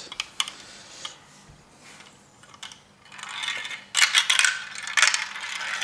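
A marble rolling down a plastic marble run's tubes, chutes and funnels. A few faint clicks at first, then from about three seconds in a rattling clatter with louder knocks as it drops through the track.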